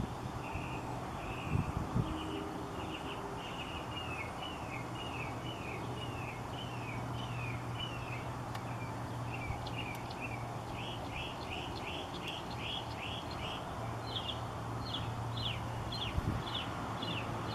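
Northern mockingbird singing: short high notes repeated several times in a row, switching to a new kind of note every few seconds. A steady low hum runs underneath.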